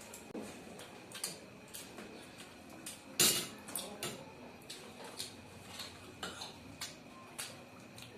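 Cutlery clinking and scraping against plates during a meal: scattered small clicks and taps, with one louder clatter about three seconds in.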